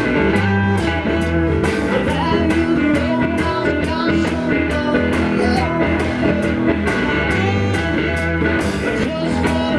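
Blues-rock band music: guitar over a bass line and a steady drum beat, with no words sung.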